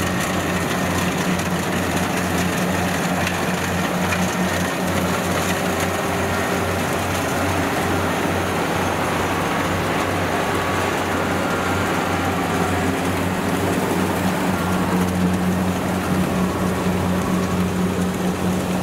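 Kubota DC70 combine harvester running under load while harvesting rice: a steady diesel engine drone mixed with the noise of the cutter and threshing machinery.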